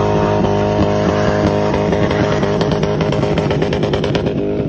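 Car engine revving high and held there, wavering slightly, as the car slides sideways on a snowy street.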